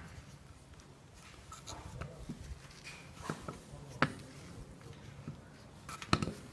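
Screwdriver tip scraping and clicking against the crimped metal rim of a propeller-shaft dust boot as the crimp is pried up bit by bit around its circumference. There are a few sharp metal clicks among light scraping, the sharpest about four seconds in and two close together near the end.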